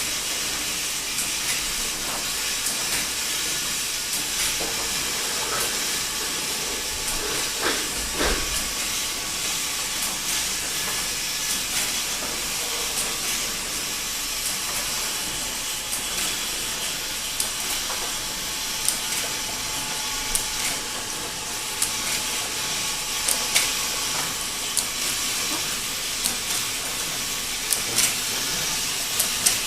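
Cough syrup bottle filling machine running: a steady hiss with scattered sharp clicks and one heavier knock about eight seconds in.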